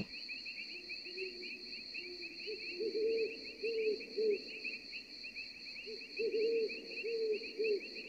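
Night-time nature ambience: insects trilling steadily in two high, fast-pulsing tones, with bouts of a low, repeated call about three seconds in and again about six seconds in.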